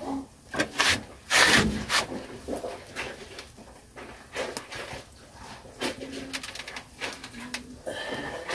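A dove cooing in a few short, low coos, with scattered sharp knocks and rustles around it, the loudest about a second and a half in.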